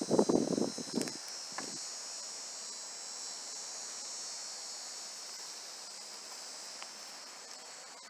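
A steady, high-pitched chorus of insects such as crickets, with a brief rustle and knock of handling noise in the first second.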